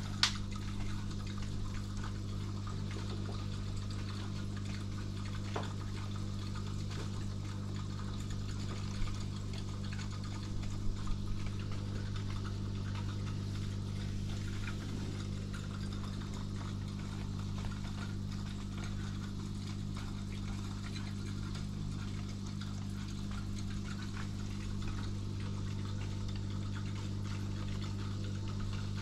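Aquarium pump running: a steady low hum with water trickling faintly. A few small clicks or taps break in, the sharpest just at the start and a short cluster about eleven seconds in.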